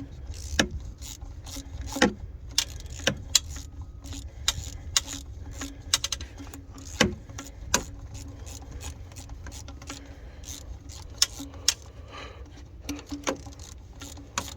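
Hand ratchet clicking and metal tools clinking at irregular intervals, some clicks in quick runs, as a 13 mm bolt is worked out of a thermostat housing.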